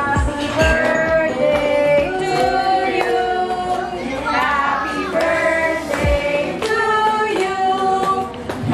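Background music: a song with singing voices carrying a melody of long held notes over a backing track, with a few low drum hits near the start.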